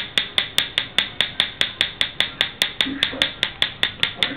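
Traditional hand-tap tattooing: the needle-tipped stick is struck with a tapping stick in a rapid, even rhythm of sharp taps, about five a second.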